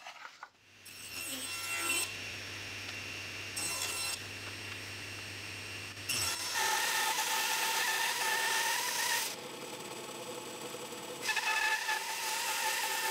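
Power tools cutting thin wooden strips. A table saw runs and rips strips. About six seconds in, a router on a router table takes over, whining steadily as strips are fed along its fence, dropping off for a couple of seconds before the next pass.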